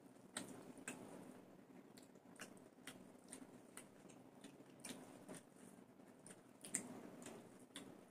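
Faint chewing and wet mouth clicks of people eating by hand, coming irregularly with one sharper click about seven seconds in.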